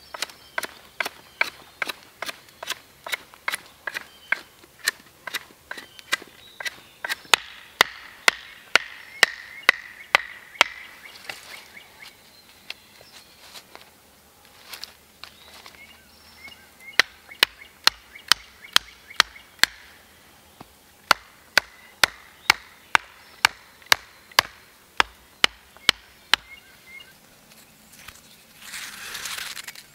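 Repeated sharp knocks of wood on wood, about two a second: a wooden tent stake being hammered into the ground with a stick used as a mallet. A brief rustle near the end.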